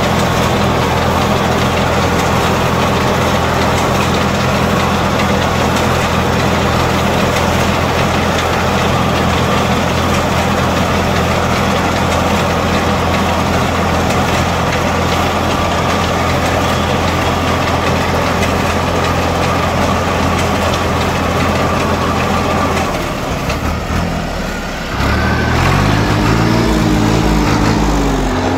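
Fiat tractor's diesel engine running steadily while driving a front-mounted reaper binder through standing wheat. Near the end the steady drone breaks off and the engine pitch rises and falls.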